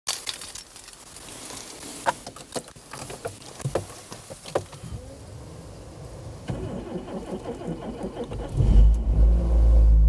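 A few sharp clicks and knocks, then a faint steady whine comes on about six and a half seconds in. Near the end a Renault Sandero's engine starts and settles into a loud, steady low running.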